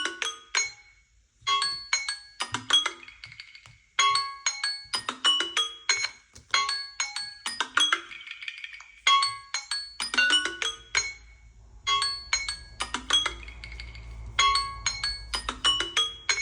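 Smartphone alarm or timer tone: a short melody of bright marimba-like struck notes, played in quick phrases with brief pauses between them, repeating over and over. A faint low hum comes in underneath about ten seconds in.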